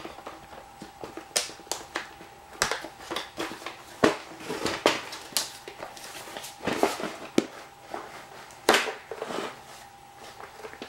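Hard plastic housing pieces of a Back2Life machine clicking and knocking irregularly as they are worked loose by hand, with a faint steady hum underneath.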